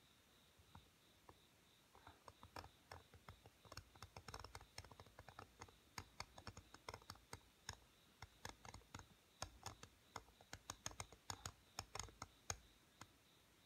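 Seal-carving knife cutting into a seal stone: a run of small sharp clicks and scratches as the blade chips away the stone, a few scattered at first, then rapid and dense from about two seconds in until shortly before the end.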